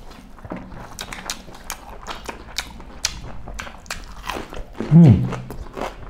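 Close-up mouth sounds of beef curry and rice being chewed with the mouth open: wet chewing, lip smacks and many short sharp clicks. About five seconds in, a brief low vocal grunt that falls in pitch stands out as the loudest sound.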